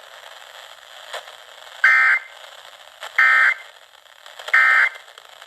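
Three short bursts of EAS SAME digital data tones, the end-of-message code that closes an emergency alert, evenly spaced about a second and a third apart. They are heard over steady FM radio hiss.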